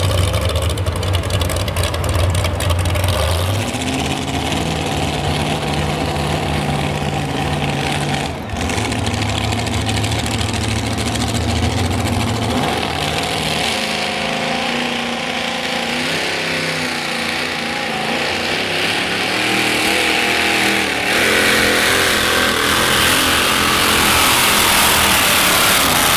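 Tractor-pull engines running at high power: first a tractor engine whose pitch steps up and down a few times, then a modified pulling tractor's engine getting louder and harsher near the end as it pulls the weight sled.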